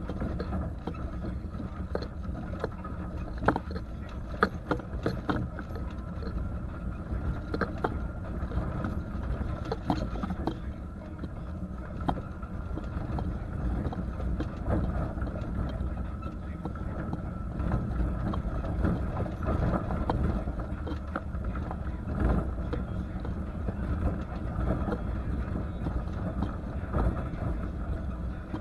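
1989 Ford Bronco XLT driving on a dirt track, heard from inside the cab: a steady engine drone with tyre and road noise. Sharp knocks and rattles from the rough track come through it, most of them a couple of seconds in and again around ten seconds in.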